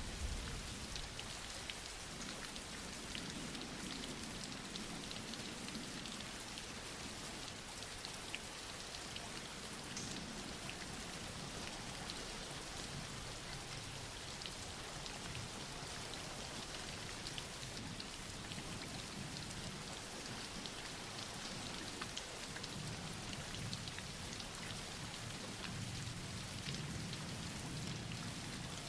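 Steady soft rain falling, an even hiss with scattered individual drops ticking.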